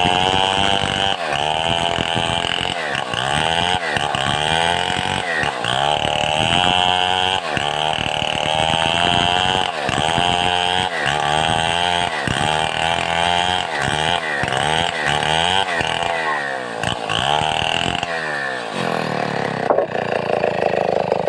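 Stihl 070 two-stroke chainsaw running while sawing a mahogany log into planks. Its engine pitch rises and falls over and over, about once a second, then settles to a steadier note near the end.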